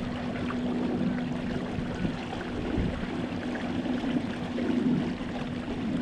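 Water rushing and splashing along the hull of a fishing kayak under way, with a steady low hum underneath.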